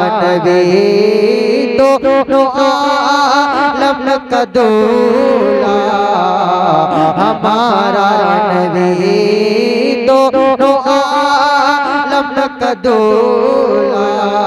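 A man singing a naat into a microphone, drawing out long ornamented notes with a wavering vibrato, with two short breaks between phrases.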